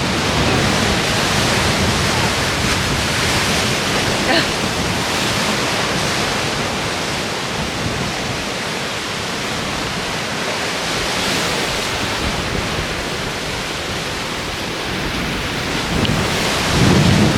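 Steady rushing of ocean surf mixed with wind buffeting the microphone, swelling gently in places, with a heavier low buffet of wind near the end.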